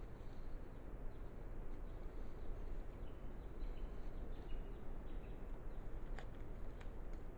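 Steady hiss and rumble of a trail camera's microphone, with faint, brief bird chirps and a couple of faint clicks near the end.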